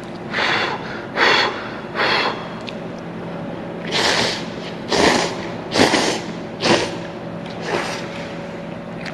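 A person slurping cup ramen noodles: eight short, sharp slurps at uneven intervals, over a steady faint hum.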